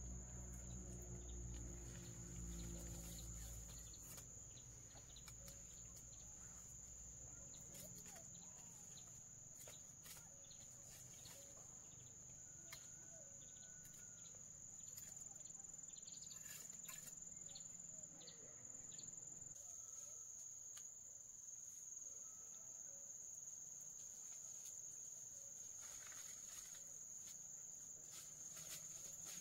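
Insects singing one steady, high-pitched note, with faint scattered clicks and a low hum that fades out in the first few seconds.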